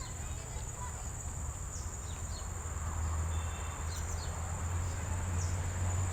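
Steady high-pitched drone of insects, such as crickets, over a low rumble. A few faint, short, high chirps drop in pitch here and there.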